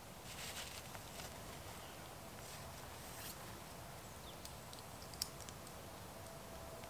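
Faint rustling of a webbing hammock tree strap being handled and fastened around a trunk, with a few small clicks in the second half and one sharper click about five seconds in.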